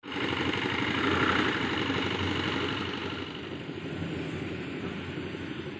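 A motor vehicle engine idling steadily, a little louder in the first couple of seconds.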